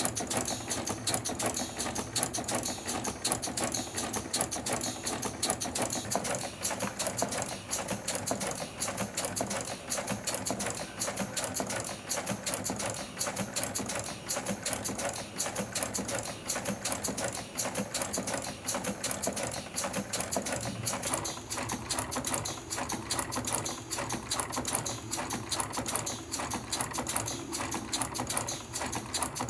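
LEGO Technic compressed-gas piston engine, running on nitrogen gas boiled off from liquid nitrogen, driving a LEGO delta robot at a steady fast pace: a rapid, even clatter of plastic parts and piston strokes.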